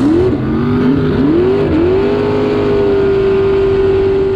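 Racing jet boat's engine heard from on board, revving up in a few quick rising sweeps, then holding a steady high pitch from about halfway through as the boat runs at speed.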